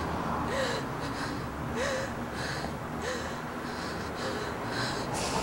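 A woman sobbing: ragged gasping breaths about twice a second, with a brief whimper three times.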